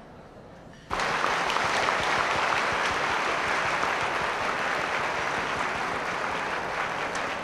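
Audience applauding. It breaks out suddenly about a second in, after a brief hush, then holds steady as dense clapping.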